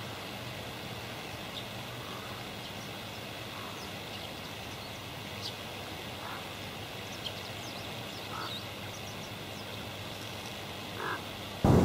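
Quiet lakeshore ambience: a steady low hum with faint, scattered bird chirps and a few short calls from waterfowl. Near the very end a gust of wind hits the microphone and drowns everything out.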